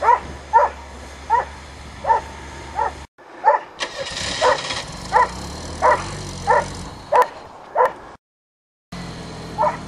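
A dog barking over and over, about a dozen barks a little under one a second, over a small engine running steadily. The sound cuts out completely twice for a moment, a little past three seconds in and about eight seconds in.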